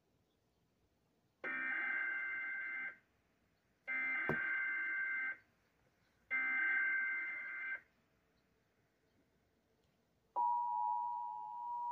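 Emergency Alert System SAME header: three identical bursts of data squawk, each about a second and a half long, marking the start of a new weather-radio alert. About ten seconds in, the steady attention tone starts and holds.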